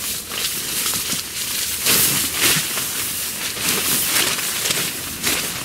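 Synthetic tent fabric rustling and swishing as a hanging inner tent is pulled out and shaken open, in irregular surges, the biggest about two and four seconds in.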